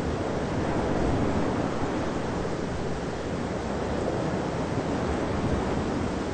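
Rolling thunder from a thunderstorm: one long rumble that swells right at the start, stays up for several seconds and dies down near the end.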